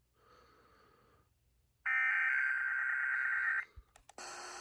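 Emergency Alert System SAME header: harsh, buzzy digital data tones. One burst lasts nearly two seconds and a second burst begins about four seconds in, with a few clicks between them. These bursts signal the start of an alert, here a severe thunderstorm warning.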